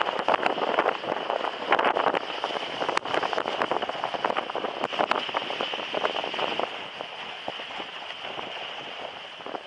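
Dog sled moving over packed snow: the runners hiss and scrape along the track, with a dense patter of small clicks and crunches. It eases off a little after about six seconds.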